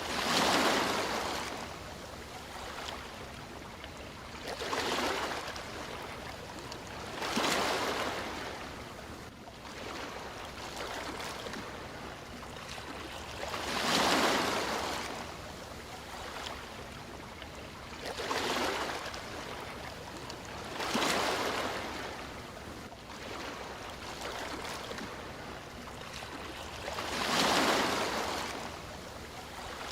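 Sea waves breaking and washing in. About seven surges swell and ebb every few seconds over a steady wash of surf.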